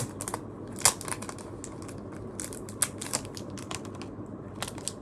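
Packaging being handled: plastic and paper crinkling, with many short crackles and clicks scattered through, a few louder ones about a second in and around three seconds in.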